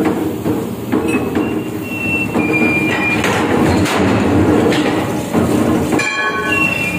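A heavy press driving its round ram down into a mild-steel truck rim plate, forming it. It makes a loud, steady mechanical rumble, with short high metallic squeals a few times: about a second in, around two to three seconds in, and near the end.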